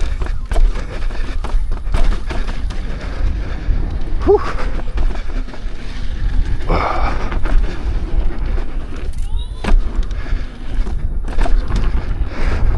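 Electric unicycle ridden hard over a rough dirt trail: heavy wind rumble on the microphone with a steady run of bumps and knocks as the wheel goes over the ground, and a few brief rising tones partway through.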